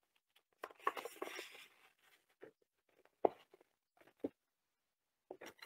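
Faint, brief rustle of a paper kamishibai card being handled, followed by a few soft short clicks.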